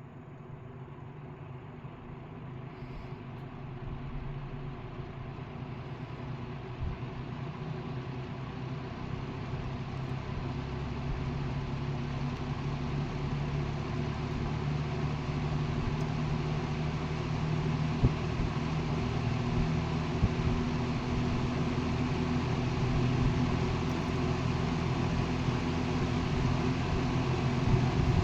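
1962 Dominion two-speed box fan (model 2067-D) running on low speed: a steady motor hum under the rush of air from its heavy steel blades, growing steadily louder as the blades come up to speed. A few faint clicks sound along the way.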